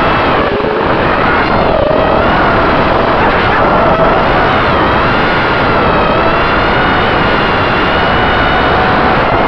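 FPV quadcopter's motors and propellers whining in flight, picked up by the onboard camera. The pitch wavers up and down with throttle over a steady rush of prop wash and wind.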